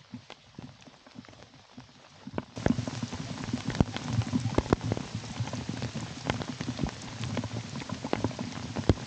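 Rain falling, with many separate drops tapping sharply close to the microphone; it gets clearly heavier about two and a half seconds in.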